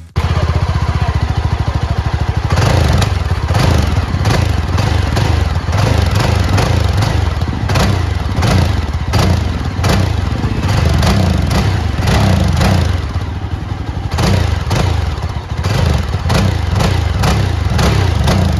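Yezdi Scrambler motorcycle's single-cylinder engine and exhaust, loud, its engine speed rising and falling again and again as the throttle is worked.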